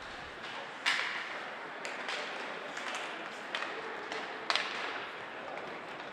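Ice hockey play: several sharp clacks of sticks and puck against the ice and boards, loudest about a second in and again a little past four and a half seconds, over the steady noise of the rink.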